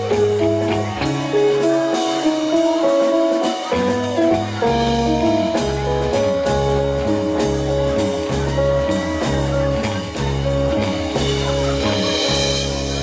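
Live rock band playing an instrumental passage on electric guitars, electric bass and drum kit: a melody of held notes over a steadily pulsing bass line.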